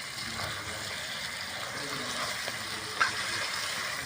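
Chicken pieces sizzling in fried masala in a cooking pot while being stirred, a steady hiss, with one sharp knock about three seconds in.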